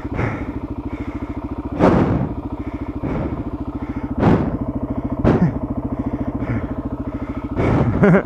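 Dual-sport motorcycle engine idling steadily, broken by about four short, louder bursts of noise.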